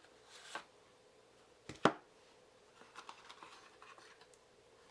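A cardboard card box and a stack of trading cards being handled: a short scrape, then a single sharp snap about two seconds in, then faint rustling.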